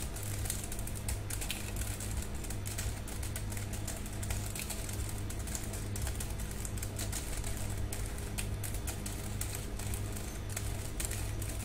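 Computer keyboard keys clicking irregularly, many clicks a second, over a steady low hum.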